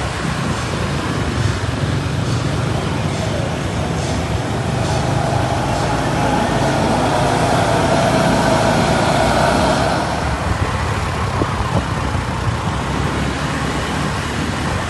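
Road traffic on a busy road, with one vehicle passing louder, building from about five seconds in and easing off after about ten.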